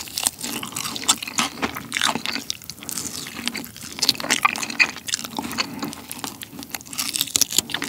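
Crunching and chewing as a sauced Korean fried chicken drumstick (yangnyeom chicken) is bitten and gnawed down toward the bone: a dense, irregular run of crisp crackles from the coating, mixed with chewing.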